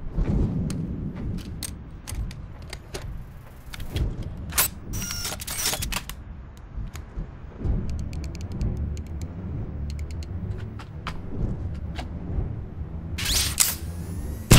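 Many sharp mechanical clicks and short whirs of a handheld gadget being set and loaded, over a steady low rumble. A loud rushing burst comes near the end.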